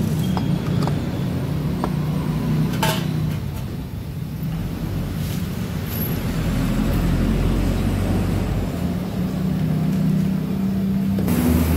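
Steady low rumble of running motor vehicles. Over it come a few light metal clicks in the first three seconds as a scooter's CVT clutch housing is set onto its shaft, and a sharper rattle near the end.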